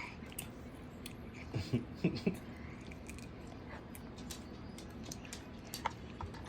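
Light clicks and taps of tableware at a meal, scattered and faint, with a few short murmured vocal sounds about a second and a half to two seconds in.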